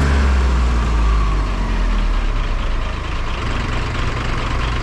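Mahindra Jivo 365 4x4 compact tractor's three-cylinder diesel engine running under load as it pulls a chained dump truck through sand, a steady low drone.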